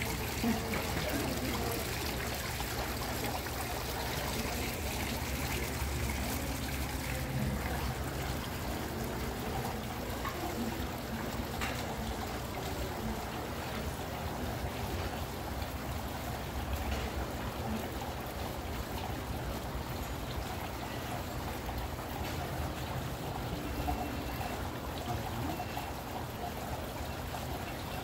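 Water from an indoor water-feature wall splashing steadily down into its basin, with a low steady hum beneath.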